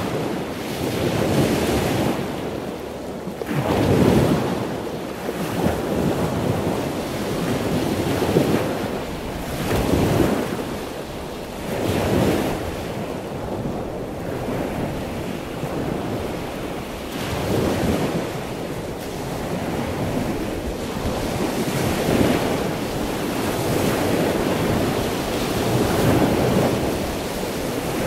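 Wind buffeting the microphone over choppy open sea, with waves rushing and slapping; the noise swells and eases every couple of seconds.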